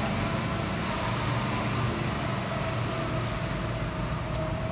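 Go-kart engines running as the karts circle the track, a steady drone.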